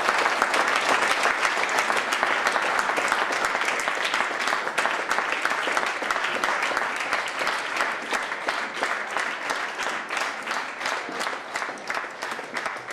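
Audience applauding, the applause slowly thinning and fading so that single claps stand out more toward the end.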